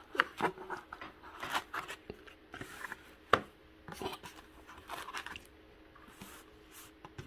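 Hard plastic projector units being lifted out of a foam-lined cardboard box and set down on a tabletop: a run of light scrapes, rustles and clicks, with one sharper knock about three seconds in.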